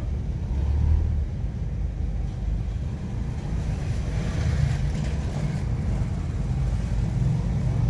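Small pickup truck's engine idling close by: a steady low rumble, amid light street traffic.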